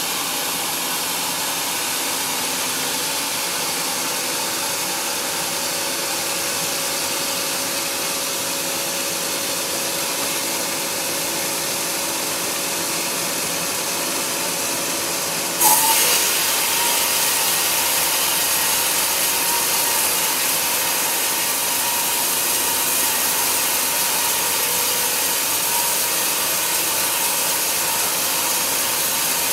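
Sawmill band saw blade running through a large log, a steady hissing rasp over the hum of the machine. About halfway through the sound steps up suddenly and stays louder.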